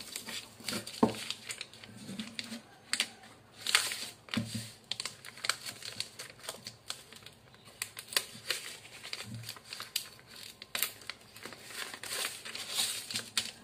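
Steel tailor's shears snipping through a taped kraft-paper sleeve pattern, a run of irregular sharp cuts, with the paper crinkling as it is handled.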